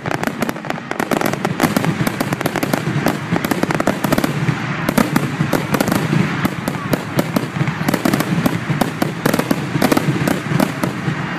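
Fireworks finale: aerial shells bursting in rapid, overlapping succession, many bangs a second with no pause, a steady, loud barrage throughout.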